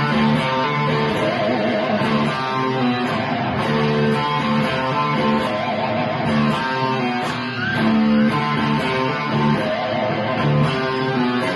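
Electric guitar played through a Mesa/Boogie amp, riffing in quick runs of changing notes, as heard through a phone's microphone.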